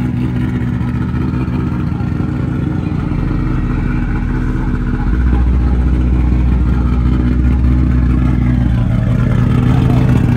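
Engine running steadily, a deep rumble that grows louder about five seconds in and eases near the end.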